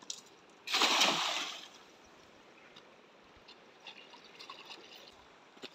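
A cast net hits the river with a splash about a second in, lasting about a second. Faint trickling and dripping follow as the wet net is hauled in at the water's edge.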